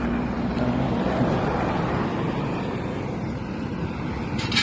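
A motor vehicle passing on the road, its engine hum fading over the first second into a steady traffic rush, with a short sharp click near the end.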